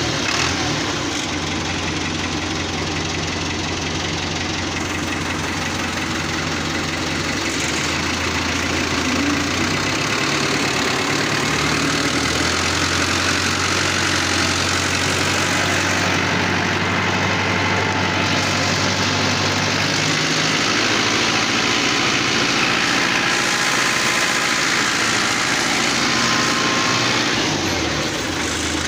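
Diesel farm tractor engine running steadily as the tractor drives across soft ground pulling a trolley loaded with soil. Its speed shifts a few times.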